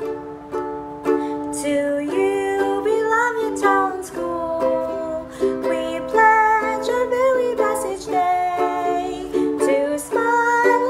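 A woman singing a slow song while strumming her own ukulele.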